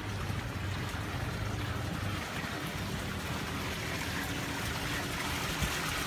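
Water running and trickling steadily, over a low steady hum.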